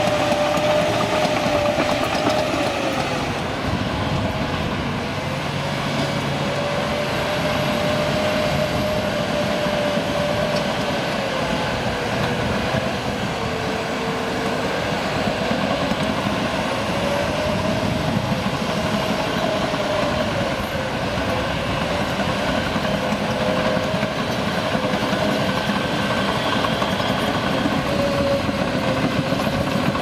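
John Deere crawler dozer working under load as it pushes dirt with its blade: the engine runs steadily with the crawler tracks clattering. A whine runs over it, dipping and rising slowly in pitch as the load changes.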